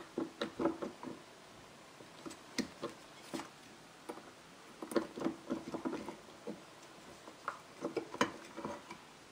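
Light metal clicks and rattles in irregular clusters as the vacuum advance unit is worked loose from a Porsche 911 SC ignition distributor body.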